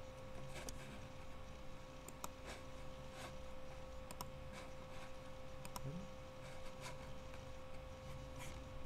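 Computer mouse clicks, a dozen or so scattered single and double clicks, over a steady electrical hum and low room noise.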